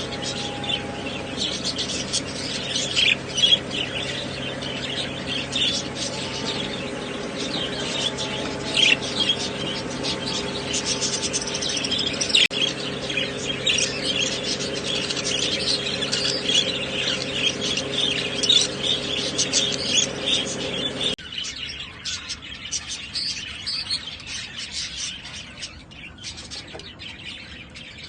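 Many caged pet birds chirping and chattering at once, dense and rapid, over a steady low hum that stops abruptly about two-thirds of the way in, after which the chirping goes on more quietly.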